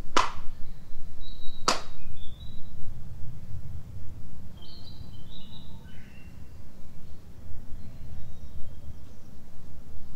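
Two sharp hand claps about a second and a half apart, the two claps of Shinto worship at a shrine. Small birds chirp afterward over a low wind rumble on the microphone.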